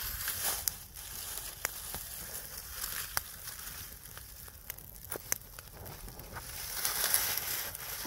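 Fire under an iron saç griddle, crackling and hissing with scattered sharp pops while the griddle heats; the hiss swells near the end.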